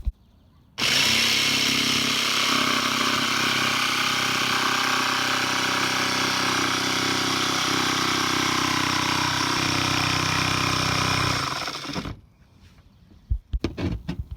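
Sabre saw with a metal-cutting blade cutting an opening through a van's sheet-metal roof. It starts suddenly about a second in, runs steadily for around eleven seconds, then winds down and stops.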